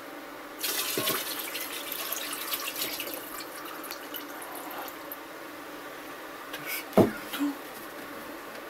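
Liquid poured in a thin stream from a glass jar into an enamel pot of lingonberry juice, splashing for about four seconds. A sharp knock about seven seconds in as the emptied glass jar is set down on the table.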